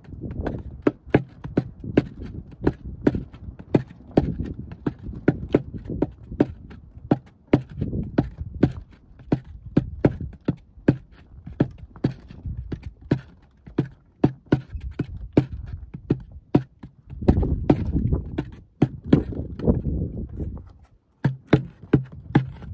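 Empty plastic water bottle drummed with the hands, playing a traditional drumming rhythm: a repeating pattern of sharp slaps, two to three strokes a second, over a low rumble.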